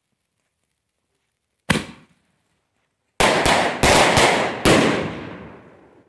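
Aerial firework rocket going off: one sharp bang about two seconds in, then a quick string of about five loud bangs overhead, the last one echoing and dying away.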